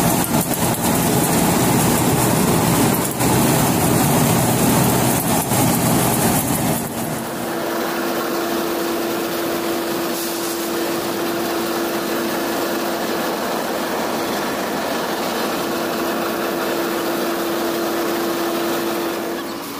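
Groundnut cleaning machine and tractor running steadily, a constant machine hum over a dense rushing hiss. About seven seconds in the sound changes abruptly to a quieter, higher-pitched steady hum.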